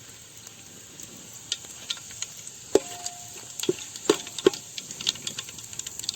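Whole spices, cinnamon and cloves, sizzling in hot oil, with a hiss that builds from about a second in and scattered sharp crackles and clicks.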